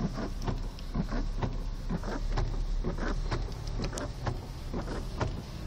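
Car driving through floodwater in heavy rain, heard from inside the cabin: a steady low rumble from the car, with irregular thuds, a few each second, of rain and water striking the body and windows.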